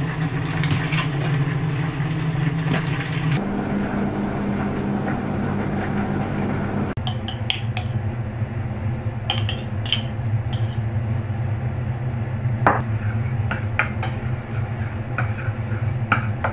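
Knife working through a block of butter in its foil wrapper, then a metal spoon tapping and scraping in a small stainless steel bowl as minced garlic is stirred into melted butter, with short clinks scattered through the second half. A steady low hum runs under it all.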